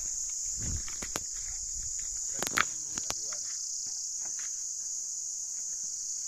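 Steady, high-pitched insect chorus droning from the forest, with scattered footsteps and small knocks on the dirt track and one sharp clack about two and a half seconds in.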